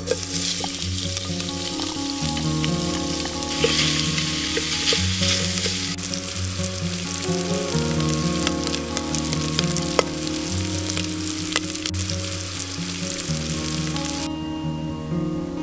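Diced smoked bacon sizzling as it fries in hot canola oil in an enamel pot, starting as the bacon drops in and growing stronger about four seconds in, with scattered sharp clicks. The sizzling cuts off suddenly near the end.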